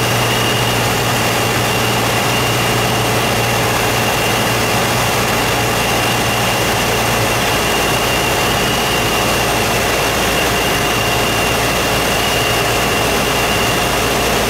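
Steady engine and airflow noise heard inside a small aircraft's cabin on final approach, a constant low drone with a thin high whine held over it and no changes in power.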